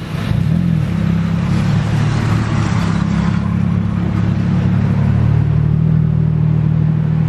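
Tuk-tuk engine running steadily as it drives along, heard from inside the open cabin with wind and road noise rushing past.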